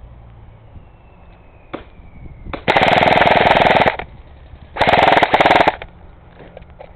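Airsoft gun firing on full auto: two rapid bursts of about a second each, the second starting about a second after the first ends.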